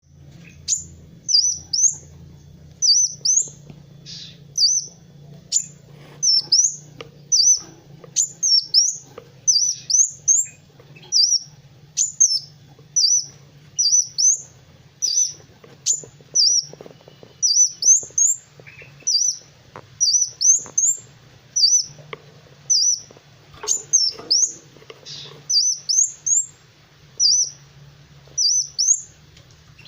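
Kolibri wulung, a sunbird, singing steadily in a run of short, sharp, high chirps, often in quick pairs or clusters, about one to two a second. A faint steady low hum lies underneath.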